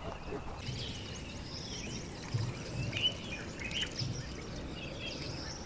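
Several birds chirping and singing, many short high calls overlapping, over a faint steady outdoor hiss, with a few soft low thumps.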